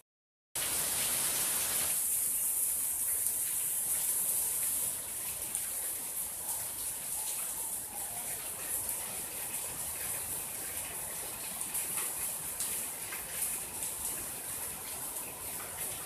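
Steady rain falling, an even hiss with faint scattered drips, after a half-second cut-out to silence at the very start; it eases slightly about five seconds in.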